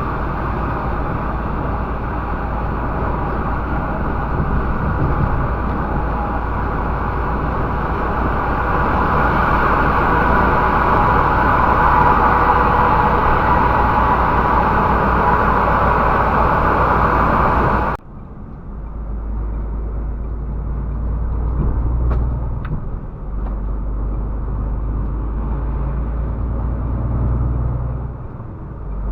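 Steady engine and road noise inside a MAN TGX truck cab while driving. About 18 seconds in the sound changes abruptly: the hiss drops away, leaving a quieter low engine hum with a few faint clicks.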